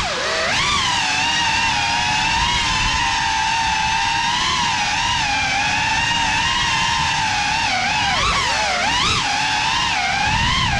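GEPRC Cinelog 35 cinewhoop FPV drone on a 6S battery: its motors and ducted propellers whine steadily, the pitch wavering with the throttle. It dips and rises sharply twice, about eight and nine seconds in.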